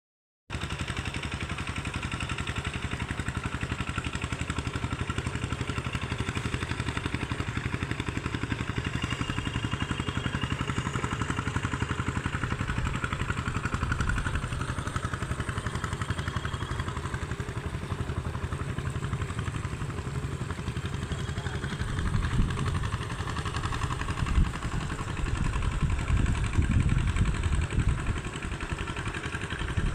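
Tractor engine running steadily. About two-thirds of the way through it grows louder and rougher in the low end.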